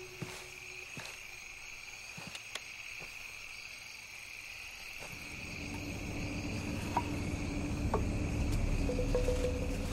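A steady night chorus of insects chirping, with a few faint clicks. From about halfway a low rumble swells up underneath.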